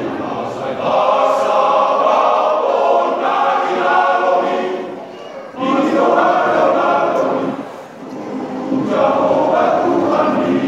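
Men's choir singing in harmony, with brief gaps between phrases about five and about eight seconds in.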